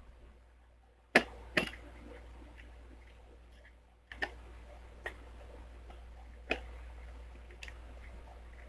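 Scattered sharp clicks and taps of a plastic toy casing and its small screws being handled during disassembly, about one every second or two, over a faint low hum.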